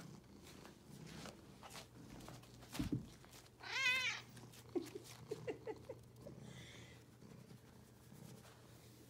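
Domestic cat meowing: one wavering, half-second meow about four seconds in, followed by a few short, quiet chirping mews. A soft thump comes just before the meow.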